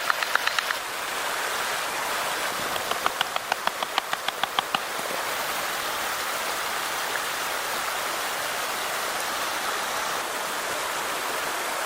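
Steady rushing noise like rain or running water. Over it, two runs of rapid, evenly spaced sharp ticks, about five a second: one in the first second and another from about three to five seconds in.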